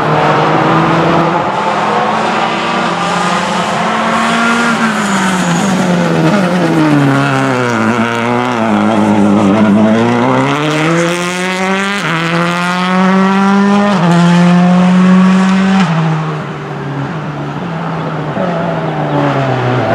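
Subaru Impreza WRC S14's turbocharged flat-four engine at full rally pace. The revs fall as the car slows for a junction about eight seconds in, then climb hard as it accelerates out, jumping in pitch with quick gear changes around twelve, fourteen and sixteen seconds in.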